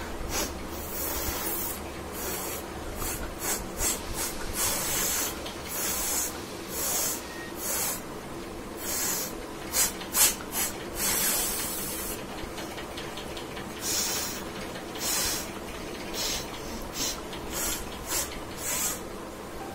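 A person sniffing and breathing sharply through the nose in many short, irregular bursts, with two sharper, louder ones close together about ten seconds in.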